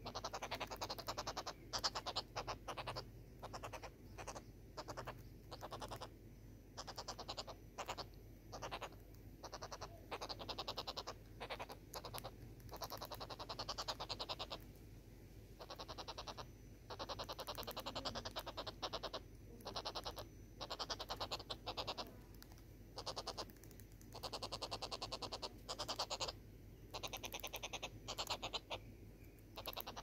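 Southern red-billed hornbills calling: a series of rapid clucking bursts, some short and some drawn out, repeating over and over.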